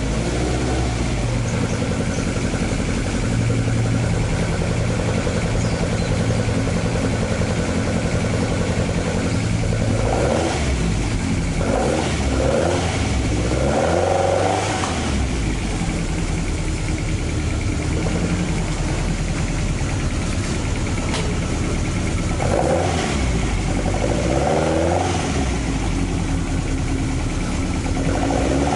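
Toyota AE86's 4A-GE twin-cam four-cylinder engine running at idle, blipped several times in two groups of short revs, about ten seconds in and again a little past twenty seconds in.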